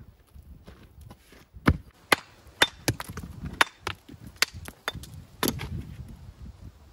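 Mason's hammer striking stone, about eight sharp, irregular knocks, some with a short ring, as stone is worked for the wall.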